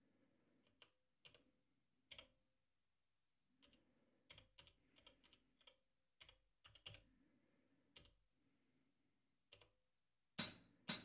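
Light clicks of the Elektron Digitakt's step keys being pressed one after another at an uneven pace, as tom trigs are entered into the pattern. Near the end, loud drum hits from the Digitakt as the pattern starts playing.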